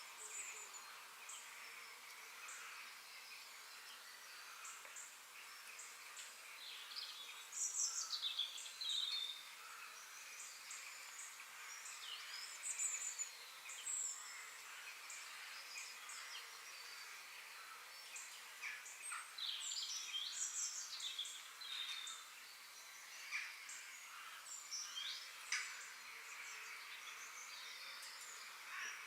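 Forest ambience: birds chirping and calling at intervals, in clusters of short rising and falling notes, over a steady background hiss.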